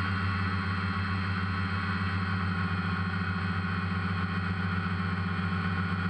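Quadcopter drone's electric motors and propellers humming steadily at constant speed, picked up by the camera on the drone itself.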